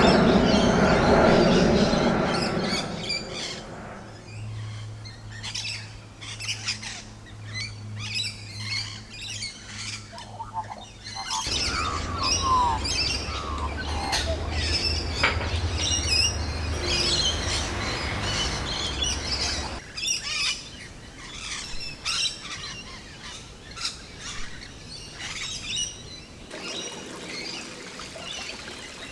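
Wild birds chirping and calling, with some short falling whistles. A jet airliner passing low overhead fades away over the first few seconds, and a low steady hum runs under long stretches in the middle.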